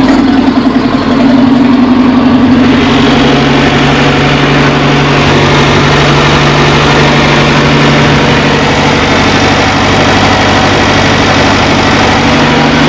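Green four-cylinder inboard boat engine idling, a little uneven for the first couple of seconds and then settling to a steady idle.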